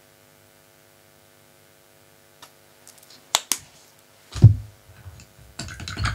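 Steady electrical hum, then a few sharp clicks and a low thump about four and a half seconds in, with light clatter near the end, as craft items such as a paint palette and paint pot are handled and set down on a tabletop.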